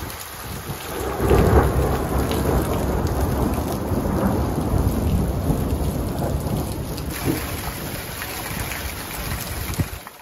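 Heavy rain pouring down in a thunderstorm, with a long rumble of thunder that swells about a second in and rolls on for several seconds before easing.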